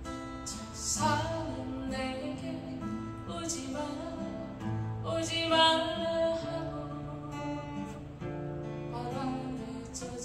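A woman singing a slow Korean ballad in Korean to strummed acoustic guitar.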